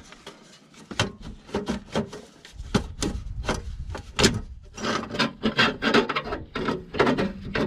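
SMG gearbox oil cooler being worked free of its rubber mounts and fed out from under the car: quick rubbing and scraping with many small knocks and clicks of the cooler against the underbody, getting busier after a few seconds.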